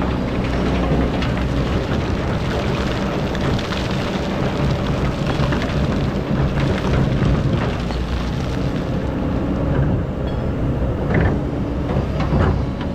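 Excavator diesel engine running steadily, with a dense gritty crackle and rattle of sand and gravel being dug and moved by the bucket.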